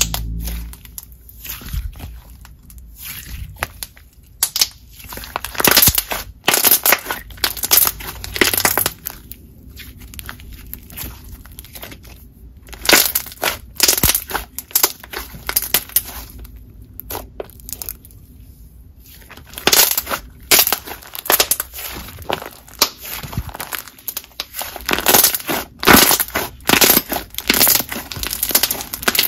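A thick, juicy jelly slime squished and kneaded by hand, giving clusters of crackling bubble pops in bursts with quieter squishing between.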